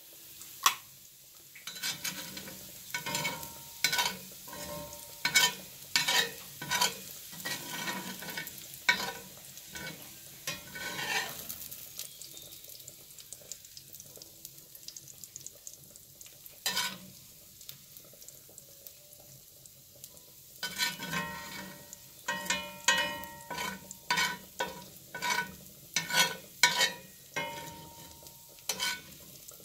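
Metal slotted spatula scraping and scooping fried onions across a cast-iron skillet, in clusters of short scrapes and ringing metal clinks, with the oil sizzling faintly in the hot pan. There are quieter spells about halfway through.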